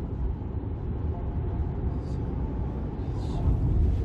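Steady low road and engine rumble inside a moving car.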